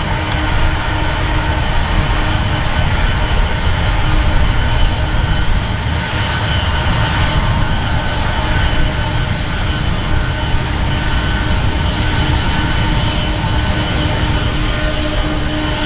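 Boeing 767 twinjet's turbofan engines running at taxi power as the airliner rolls slowly past. A steady jet whine with several held tones over a low rumble.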